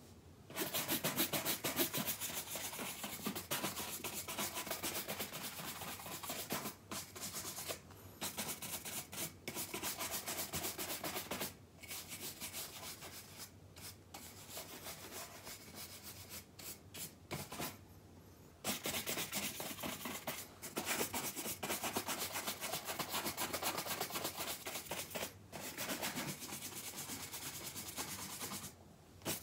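Horsehair shoe brush swept rapidly back and forth over shoe uppers: a dense, scratchy brushing in long runs of quick strokes, broken by several short pauses.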